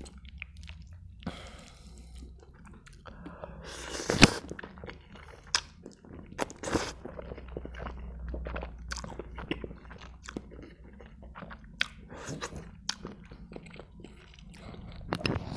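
A person slurping up instant noodles and chewing with an open mouth, close to a clip-on microphone. There is a short slurp about a second and a half in and a louder one around four seconds in, then wet chewing with many small mouth clicks.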